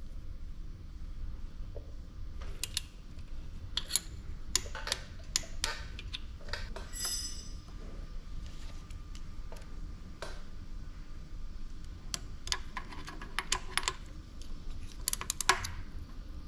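Hand tools clicking and clinking on metal while a PSA 1.2 engine's wet timing belt tensioner and guide pulley are set with a torque wrench and an Allen key. The clicks come irregularly; one clink about seven seconds in rings briefly, and a quick run of clicks comes near the end.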